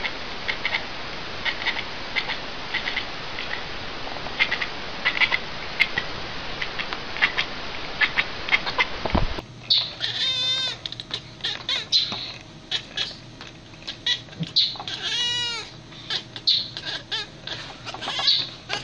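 Domestic cats calling: a tabby cat makes short clipped calls in clusters over a hissy background. Then, after a sudden change about halfway, an orange-and-white cat makes a series of high calls that each rise and fall in pitch.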